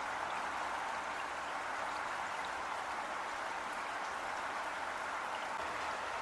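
Heavy rain falling steadily, an even hiss of many drops with no let-up.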